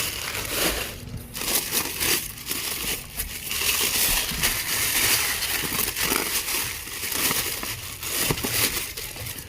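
Crumpled packing paper rustling and crinkling continuously as hands dig through a delivery box, with many small crackles.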